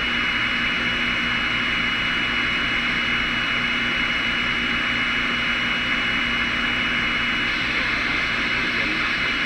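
Radio receiver static on an open channel between transmissions: a steady hiss with a thin, high, constant whistle and a low hum.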